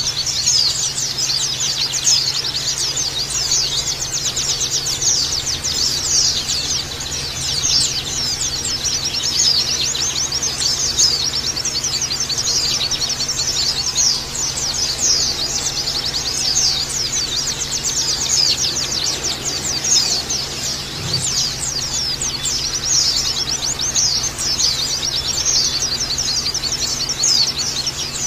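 A flock of white-eyes (pleci) chirping and twittering together in a dense, continuous chorus of rapid, overlapping high notes, like a crowded cage of pleci.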